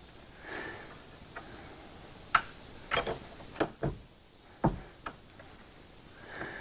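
Irwin bench vise being handled at its swivel base, its steel lock handles clicking and clanking against the vise body: a run of about seven sharp metallic clicks from about two seconds in to about five seconds in.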